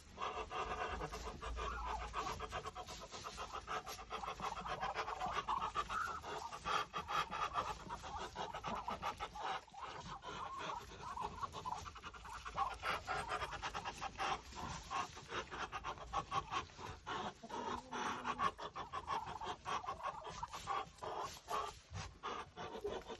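A poultry flock of Muscovy ducks and hens calling, a continuous run of short overlapping calls.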